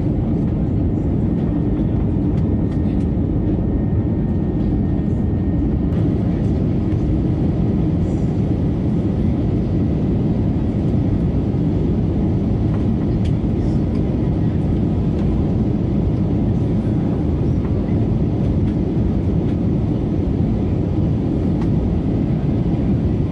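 Steady low rumbling cabin noise inside an Airbus A320neo airliner in flight, engine and airflow noise heard from a passenger seat.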